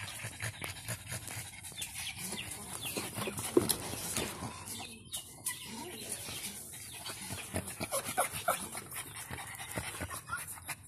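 Small dogs in a wire cage, a black pug puppy among them, panting and whining, with many light clicks and rattles from the cage wire.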